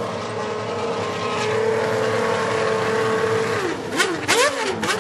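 A 1993 Formula 1 car's engine holds a steady high-revving note at full throttle. About three and a half seconds in, the pitch drops in quick steps with short rising blips and cracks, the pattern of downshifts under braking.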